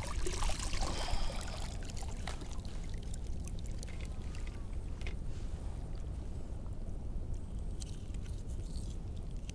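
A plastic bucket splashes into shallow water, the splash fading within about the first second, followed by a steady low rumble with a few faint clicks.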